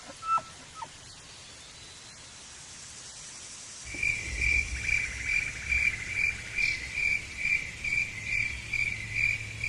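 Cricket chirping in an even rhythm, about two to three high chirps a second, starting about four seconds in.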